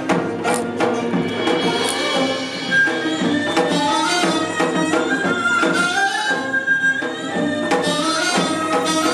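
Korean traditional music played live by a gugak ensemble: sharp percussion strokes at first, then a pitched melody stepping up and down from about three seconds in.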